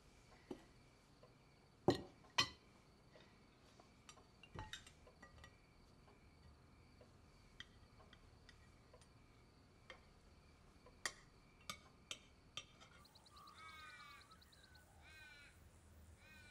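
Cutlery clinking and tapping on dinner plates: scattered sharp clicks, the loudest two about two seconds in, and a cluster of lighter ones near the end. A faint warbling bird call comes through near the end.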